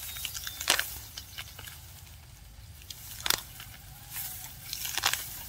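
Scattered sharp snaps and crackles, three louder than the rest, over a faint low rumble.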